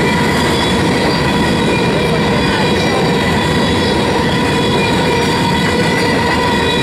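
Freight train's covered hopper cars rolling past close by: a steady, loud rumble of steel wheels on rail, with steady high ringing tones from the wheels over it.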